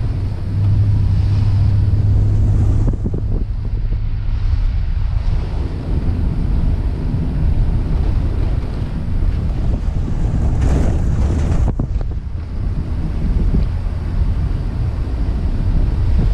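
Wind buffeting the microphone of a camera mounted on a moving car, over a steady low rumble from the car's engine and tyres.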